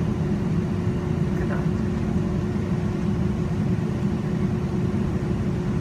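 Cabin noise inside a Boeing 757-200 taxiing after landing: a steady rumble from the idling engines with a constant hum running through it.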